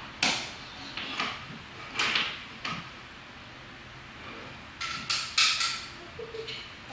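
Scissors snipping small pieces of cloth hockey tape: short, sharp cuts about a second apart, then three in quick succession about five seconds in.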